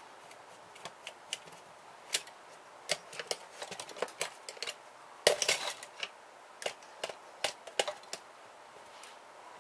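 Metal printer parts and hand tools clinking and clacking irregularly as the printer is worked apart, with a louder burst of clatter about halfway through.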